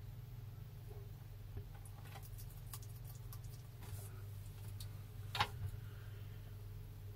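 Small clicks and soft crunches of a bearded dragon snapping up and chewing a calci worm (black soldier fly larva), with one louder click about five seconds in, over a steady low hum.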